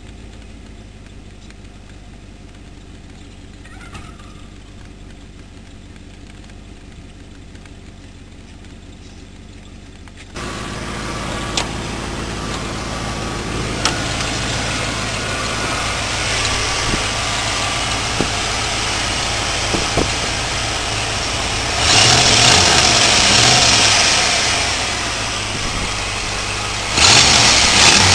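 1993 Ford F-150's 5.0-litre V8 running, faint at first, then much louder and closer from about a third of the way in, heard in the open engine bay. Near the end it gets louder twice more.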